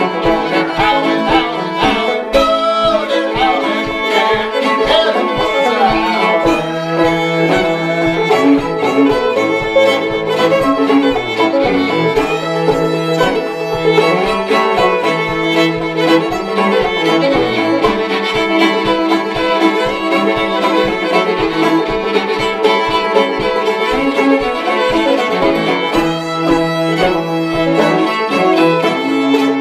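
Old-time string band playing a Mississippi fiddle tune: bowed fiddle carrying the melody over open-back banjo and bowed cello, with a steady beat.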